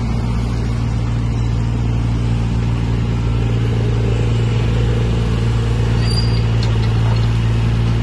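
Mini excavator's diesel engine running steadily under load, its hydraulics working the boom and tracks as the machine climbs onto a pickup truck bed. The hum holds one steady pitch and grows slightly louder toward the end.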